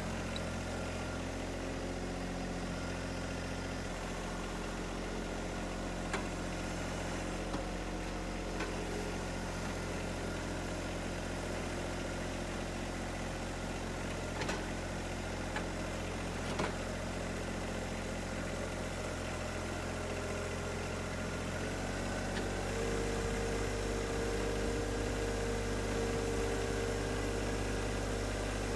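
John Deere 1025R compact tractor's three-cylinder diesel engine running steadily while the tractor pulls a box blade through dirt, with a few light clicks. About three-quarters of the way through, the engine note changes and a higher steady tone joins it.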